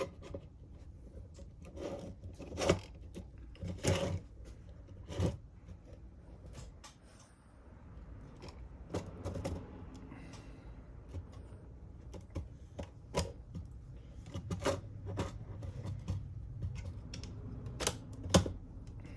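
Irregular clicks and knocks of 3D-printed plastic model parts and small tools being handled and fitted together, the loudest a few seconds in and near the end.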